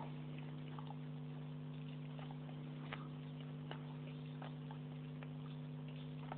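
A steady low electrical hum with faint, scattered small clicks and ticks over it.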